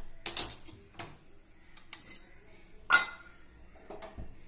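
A small stainless-steel pan on a gas stove grate knocking and scraping against the metal, with a few sharp clinks of steel kitchenware; the loudest knock comes about three seconds in.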